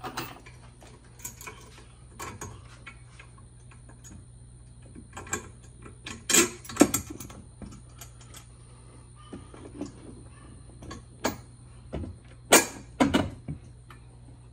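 Small metal clicks and knocks as a bolt with its spacer is worked by hand through a golf cart's steel roof-support bracket. The loudest clatters come about halfway through and again near the end.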